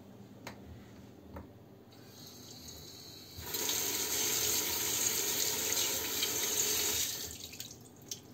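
Kitchen tap running, its stream splashing over a small stainless-steel teapot into the sink as the teapot is rinsed; the water comes on about three and a half seconds in and stops about three and a half seconds later.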